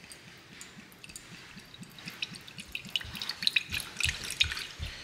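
Liquid tonic poured from a bottle into a ceramic mug: a stream of small, irregular splashes and glugs that grows louder about two seconds in.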